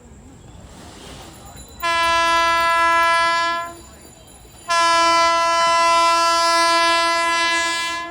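WAP-5 electric locomotive's horn sounding two long, shrill blasts of one steady note: the first about two seconds long, the second about three seconds long, a second apart.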